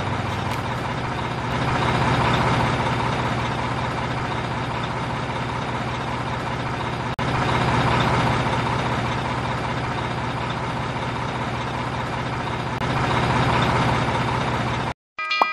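Heavy truck engine idling steadily, swelling slightly a few times, with a brief dropout about seven seconds in and a sudden cut-off just before the end.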